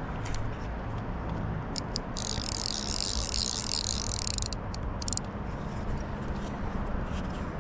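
Handling noise of a fishing rod and centrepin reel: a few light clicks and a high rustling hiss lasting about two seconds in the middle, over a steady low rumble.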